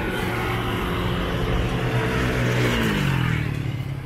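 A motor vehicle's engine running close by; its note falls in pitch and fades about three seconds in, as a vehicle does when it drives past.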